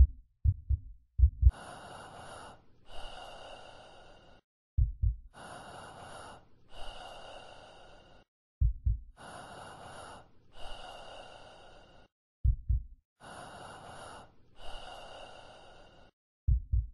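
Horror-style heartbeat and breathing sound effect: a low double thump like a heartbeat, then a slow breath in and a breath out, the cycle repeating about every four seconds. The heartbeat thumps are the loudest part.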